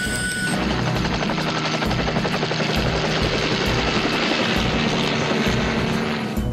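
Helicopter rotor chopping rapidly and steadily as a rescue helicopter flies. It starts about half a second in and cuts off just before the end.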